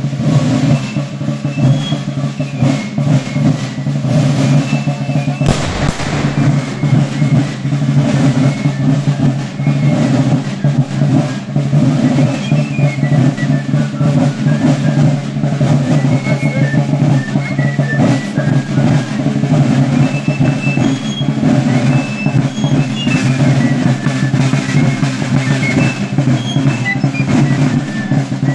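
Fife-and-drum corps playing a march: side drums beating a steady rhythm under a high, shrill fife melody. One sharp bang about five and a half seconds in.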